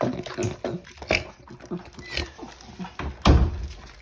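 Dog eating pieces of food from a plate: irregular crunching and chomping, mixed with the odd noises she makes while eating. A louder, deeper bump comes a little past three seconds in.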